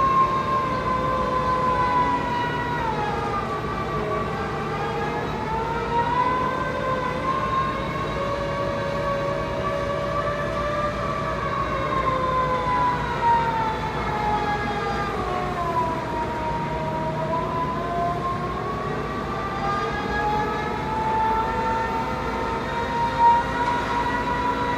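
Van Elle piling rig working, its machinery giving a whine made of several tones whose pitch slowly sinks and rises again over several seconds as the load changes, with a few faint knocks.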